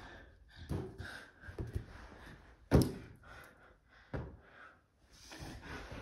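Dull hollow thumps of an inflated latex balloon being batted by hand, one much louder thump about three seconds in.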